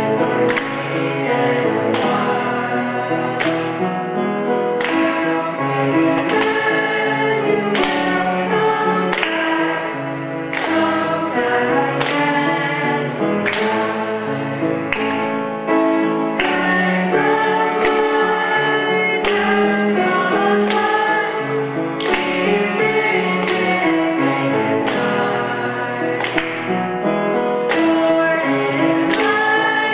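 A small group of young voices singing a song with cello accompaniment, and hand claps keeping a steady beat about every three quarters of a second.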